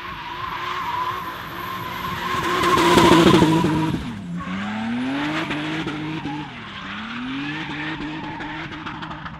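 Drift car sliding sideways with its tyres squealing and its engine revving hard, loudest about three seconds in. The engine pitch then drops and climbs back twice as the throttle is worked through the slide.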